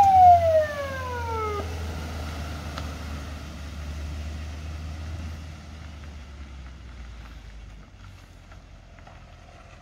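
Federal Signal PA300 Silverface electronic siren sweeping in a quick rise and a slow fall, cutting off about a second and a half in. The car then runs on with a low engine and tyre rumble that fades as it pulls away.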